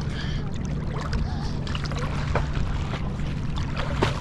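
A boat's engine idling with a steady low hum, with small splashes of water and a sharp click near the end.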